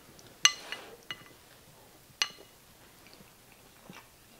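A utensil clinking against a ceramic dish three times: a sharp clink about half a second in, a lighter one a second in, and another just after two seconds, each ringing briefly.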